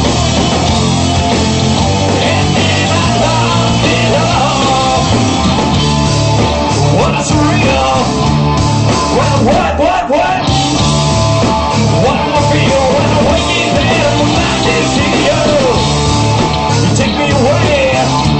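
Loud rock music with a punk edge, a band with a steady driving low end and a singing voice over it.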